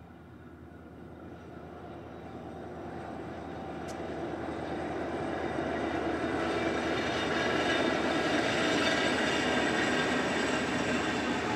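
Diesel freight train with four locomotives passing. Its running noise grows steadily louder over the first six or seven seconds, then holds steady as the flat wagons roll by.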